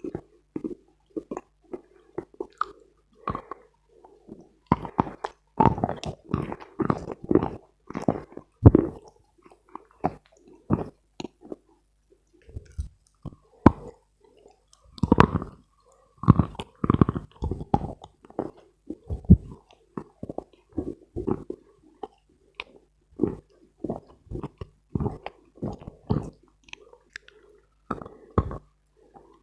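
A person chewing and crunching Khrapovsky chalk, a dense dry chalk, in uneven runs of sharp crunches with short pauses between.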